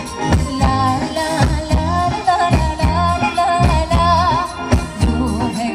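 Live band playing Thai ramwong dance music through a PA, with a singer's wavering melody over a steady drum-and-bass beat.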